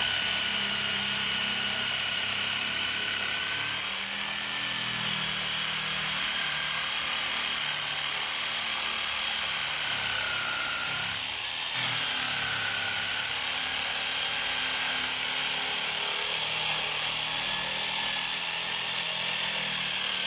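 Cordless drill running under load, boring with a steady motor whine; the whine dips briefly about halfway through and picks up again.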